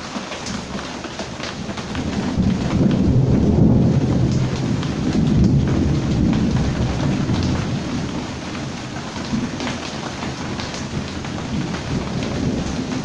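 Heavy rain falling steadily with scattered close drop ticks, and a low roll of thunder that swells about two seconds in and dies away after several seconds.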